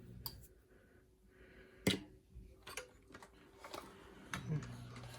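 A few scattered light clicks and taps, with one sharper knock about two seconds in: a screwdriver and the parts of a Kirby G4 vacuum cleaner being handled during disassembly.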